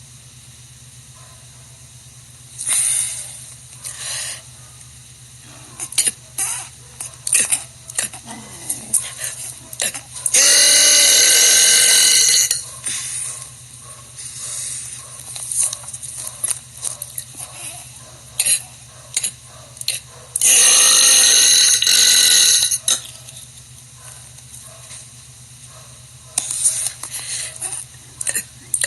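A young woman belching: two long, loud burps of about two seconds each, one about ten seconds in and one about twenty seconds in. Short clicks and brief sounds come in between.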